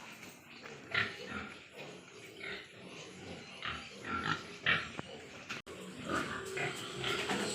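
Large White Yorkshire pigs making repeated short calls, several pigs at once, with the calling growing busier over the last couple of seconds.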